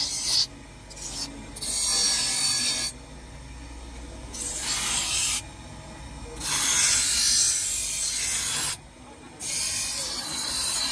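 A bench grinder's abrasive wheel grinds a wooden-handled kitchen knife in five separate passes of one to two and a half seconds, each a loud rasping hiss. The motor runs steadily in the short pauses between them. The passes work the riveted wooden handle and, near the end, the steel blade.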